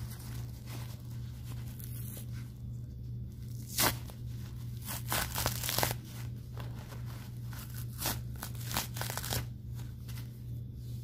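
Plastic-backed adult diaper crinkling, and its padding rustling and tearing, as hands pull at it, in irregular bursts with the sharpest a little before four seconds in. A steady low hum runs underneath.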